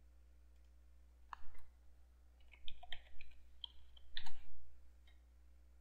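A single click, then a quick run of keystrokes on a computer keyboard as a short word is typed in, about three to four and a half seconds in.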